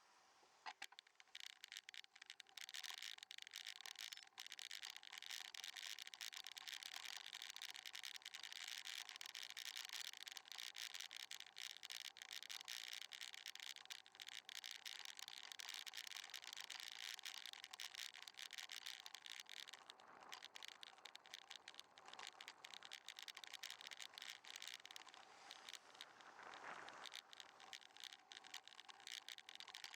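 Quiet riding noise picked up by a bicycle-mounted camera: a steady hiss with a fast, continuous crackle from the bike rolling along the road. It swells briefly twice, once about two-thirds of the way through and again near the end.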